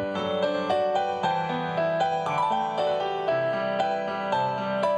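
Electronic keyboard with a piano voice playing a gentle melody over chords, an instrumental interlude with no whistled line.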